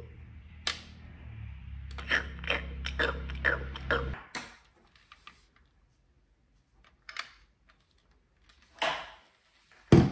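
Electronic feeding noises from a My Garden Baby Bébé Câlin Chaton doll, a string of short mouth sounds set off by its toy spoon, stopping about four seconds in. A few knocks follow as the plastic doll is handled and laid on a wooden table, the loudest near the end.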